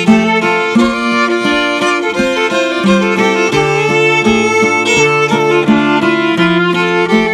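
Old-time fiddle and acoustic guitar playing an instrumental passage. The fiddle carries the melody over guitar backing, with the guitar's bass notes stepping along beneath in a steady rhythm.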